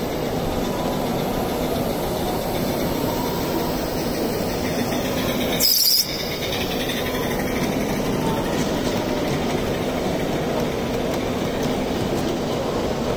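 Small 16mm-scale live-steam model locomotive running on a garden railway layout over a steady hubbub of crowd chatter, with a sharp, high hiss of steam lasting under half a second about six seconds in.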